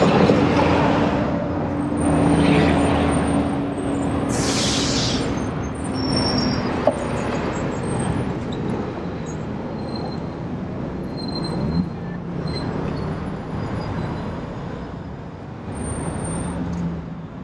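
City street traffic passing close by, with engines running and a short hiss of air about four seconds in.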